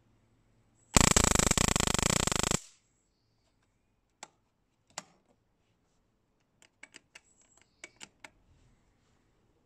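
A homemade high-voltage spark generator, a ZVS driver and flyback transformer with a microwave-oven capacitor, fires across an adjustable spark gap. Starting about a second in, it gives a loud, rapid crackle of sparks for about a second and a half, then cuts off. Scattered sharp clicks follow, two on their own and then a quick cluster near the end.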